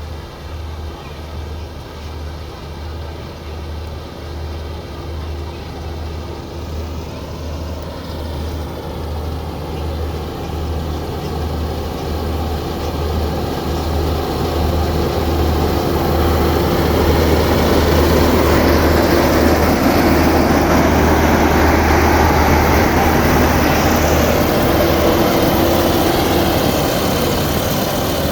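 Half-feed combine harvester engine running steadily, growing louder through most of the stretch and easing off slightly near the end.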